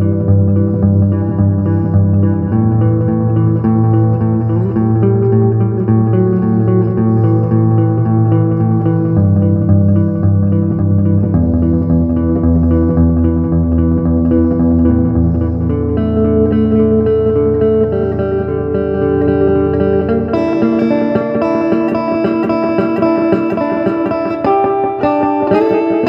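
Electric guitar improvisation played through an amplifier: slow, ringing chords and single notes over held low notes that change every few seconds. The playing turns brighter about twenty seconds in.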